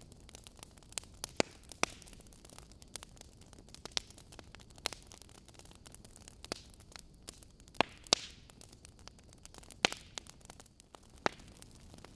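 Wood fire in a fireplace crackling, with irregular sharp pops from the burning logs over a soft hiss. The loudest pops fall a little past a second, near two seconds, around eight seconds and near ten seconds.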